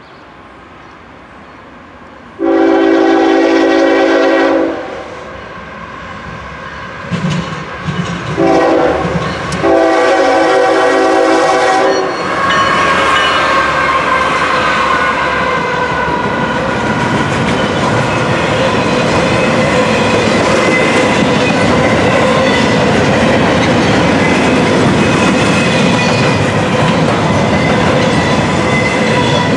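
Locomotive air horn sounding one long blast, then a short and a long blast, as a GE ES44AC diesel locomotive's engine rumbles past. The horn is followed by the steady rolling noise of intermodal container cars going by, with wheel clickety-clack and thin metallic wheel squeal.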